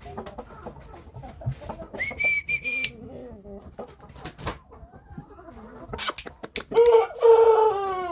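Game cock clucking with scattered low calls, then a single long crow starting about seven seconds in that drops in pitch as it ends. A brief steady high note sounds about two seconds in.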